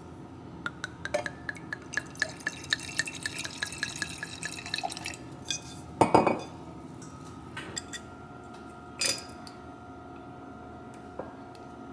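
A metal utensil clinking quickly against a dish or glass for a few seconds, about four or five taps a second. A loud knock follows about six seconds in, and a smaller one about three seconds later.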